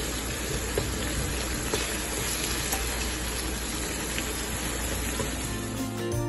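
Ground beef sizzling steadily in a nonstick frying pan in its own juices, with a few light scrapes and taps of a wooden spatula breaking up the meat. Music fades in near the end.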